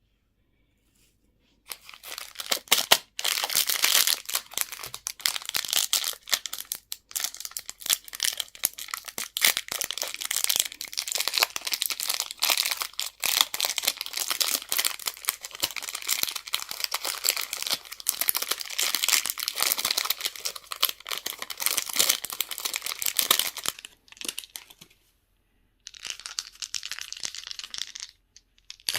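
A crinkly candy wrapper being torn open and unwrapped by hand. It crackles and rustles continuously from about two seconds in for some twenty seconds, stops briefly, then crinkles again for a couple of seconds near the end.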